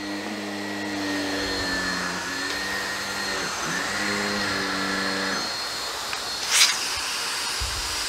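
Miele C3 canister vacuum running on its auto suction setting with the 236 powered carpet nozzle switched on, pushed across a rug: a steady whir with a low hum that shifts in pitch and drops away about five seconds in. A short hiss sounds near the end.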